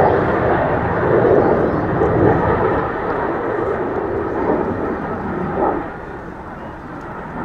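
Twin General Electric J85 turbojets of an A-37 Dragonfly jet passing overhead at display power: a loud, steady jet rush that grows fainter about six seconds in.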